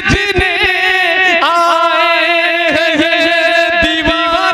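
A man singing a long, ornamented held melodic line of an Urdu devotional manqabat through a microphone, with no clear words.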